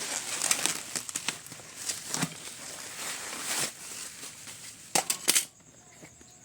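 Rustling and crackling of the head torch's packaging being handled, with scattered clicks and a few sharp clicks about five seconds in, after which it suddenly goes much quieter.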